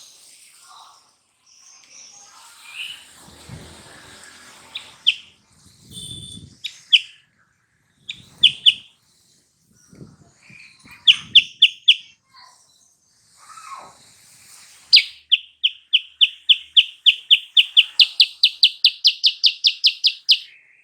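Silver-eared mesia (kutilang sutra) singing: scattered short, sharp chirps, then a long run of rapid repeated notes that quickens near the end and stops abruptly.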